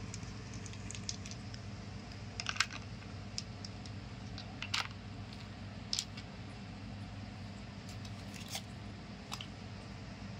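Light, scattered clicks and taps of hard seeds being handled and set down in a plastic bowl, over a steady low hum.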